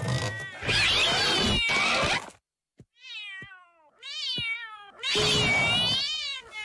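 Cat yowling in a string of drawn-out meows, their pitch wavering and falling, with short gaps between them and a few light ticks in the quieter middle stretch.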